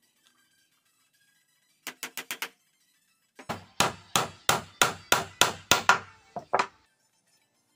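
Hammer striking a wooden peg in a clamped wooden frame joint, driving the dowel in: first a quick burst of light taps, then a steady run of about eleven hard blows, roughly three a second.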